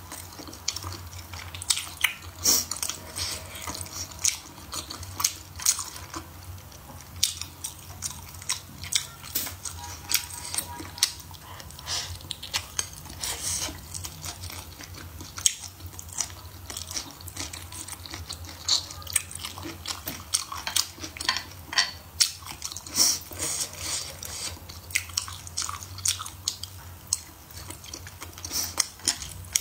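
A person chewing food close to the microphone, with many irregular wet clicking and smacking mouth sounds over a faint steady low hum.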